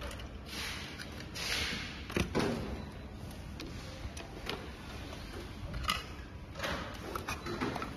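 Steady background room noise with a couple of brief rustling hisses in the first two seconds and scattered sharp clicks and knocks, the loudest just after two seconds in and again near six seconds.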